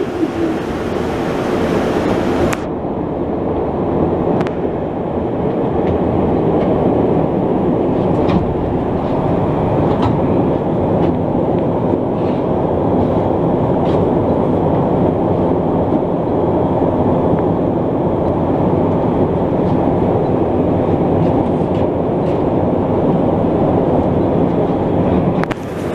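Montreal Metro MR-73 rubber-tyred train running and pulling into a station, heard from inside the car: a steady, loud rumble of the running gear with a few faint clicks.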